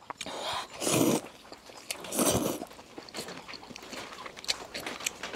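A person slurping up a mouthful of stir-fried rice noodles, with two long noisy slurps about a second apart, followed by faint chewing clicks.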